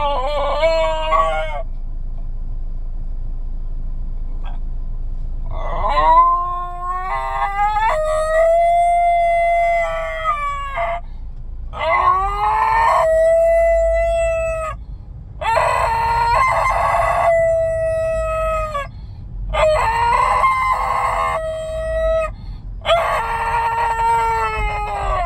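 Basenji howling and yodelling in long, drawn-out notes that slide up and then hold, in a run of howls with short breaks between them. A pause of about four seconds near the start. A low car rumble runs underneath.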